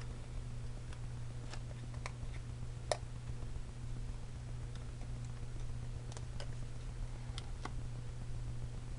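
A few light clicks and taps of paper and small embellishments being handled and placed on a scrapbook page, the sharpest about three seconds in, over a steady low hum.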